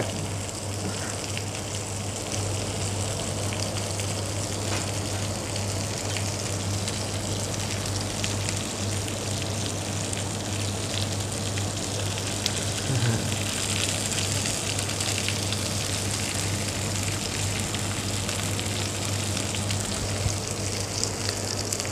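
Tomahawk steak sizzling steadily in a ridged grill pan as it sears over a very low gas flame, with a steady low hum underneath.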